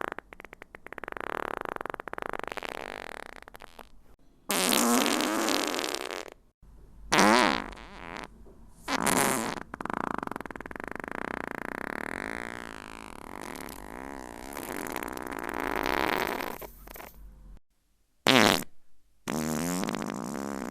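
A string of fart sound effects played one after another, about seven in all: short sharp blasts and longer drawn-out ones, several wavering and sliding in pitch, with brief gaps between them.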